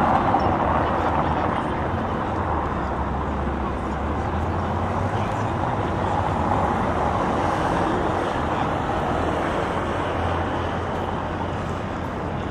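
Steady city traffic noise: the low rumble and hiss of road vehicles, slightly louder in the first second or so.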